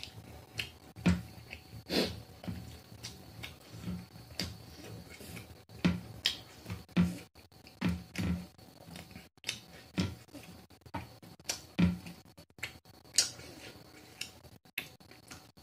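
A person eating close to a clip-on microphone: irregular short smacks and clicks of chewing and mouth sounds, about one or two a second.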